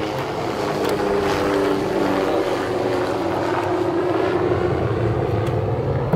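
A steady engine drone with a slowly drifting pitch.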